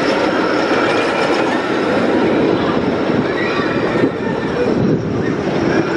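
Chance Rides Hyper GT-X steel roller coaster train running along its steel track, a steady loud rumble of the wheels on the rails.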